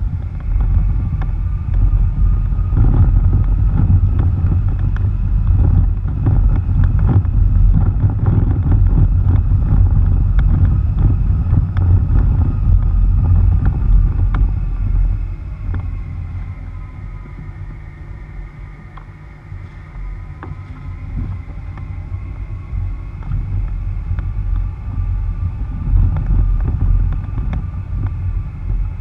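Vehicle tyres rolling over a rough dirt road, picked up by a camera on the front bumper: a heavy low rumble with scattered ticks of grit and stones. It eases off around the middle and picks up again near the end.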